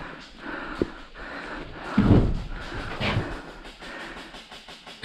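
Heavy panting breaths and footsteps of a person on the move, with two louder breaths or steps about two and three seconds in.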